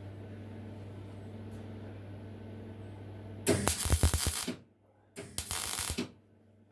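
Steady low hum, then two bursts of crackling about a second each, starting about three and a half seconds in: plausibly a welder tacking a patch onto a rusted exhaust back box.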